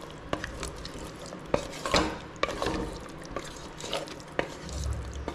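Wooden spatula stirring a thick curry of chicken, masala and curd in a metal pot, scraping and knocking against the pot's sides and bottom in irregular strokes.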